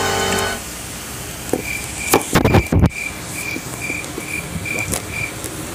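A string of short high beeps, evenly spaced about twice a second, with a few loud knocks from the phone being handled partway through. Background music cuts out about half a second in.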